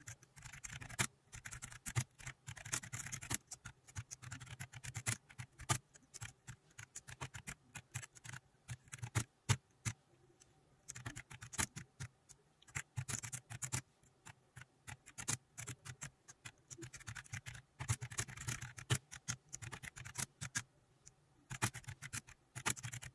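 Typing on a keyboard: quick, irregular keystroke clicks in runs, broken by short pauses, over a faint low hum.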